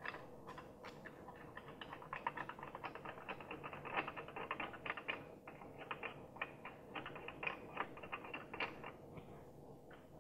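Faint, quick light metallic clicking and ticking as the AP Racing caliper bracket's mounting bolts are fed in from the back of the hub and turned in by hand, the steel bracket and bolts knocking lightly against the hub. The clicking thins out shortly before the end.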